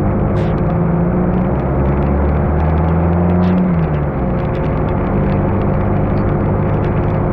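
Car engine and road noise while driving; the engine note grows louder and rises slightly about two seconds in, then falls back near the middle.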